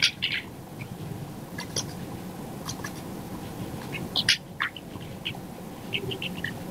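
Computer keyboard keys being tapped in short, irregular runs of typing, light clicks over a steady low room hum.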